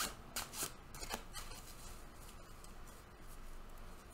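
A deck of oracle cards shuffled by hand: four quick papery swishes in the first second or so, then faint rubbing as the cards slide across the table.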